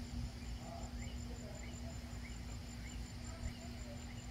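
Hens softly clucking and murmuring as they forage, over the fast, steady pulsing chirr of a cricket-like insect. A low rumble and faint hum run underneath.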